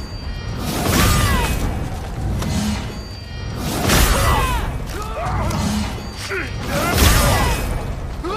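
Katana sword-fight sound effect: blades clash about every three seconds, three times, each strike followed by a ringing metallic tone that bends in pitch, over a steady low background with music.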